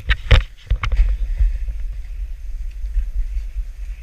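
A snowboard scraping and thudding on packed snow several times in the first second as the rider spins frontside and lands. Then the board runs steadily over the snow with a low rumble, and wind buffets the action camera's microphone.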